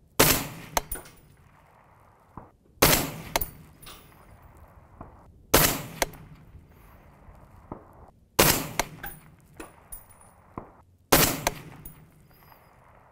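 Five suppressed rifle shots, evenly spaced about every two and a half to three seconds, from a semi-automatic Wilson Combat Super Sniper in 6.5 Creedmoor fitted with a Dead Air Sandman L suppressor. Each shot has a short ringing tail and a few lighter clicks after it.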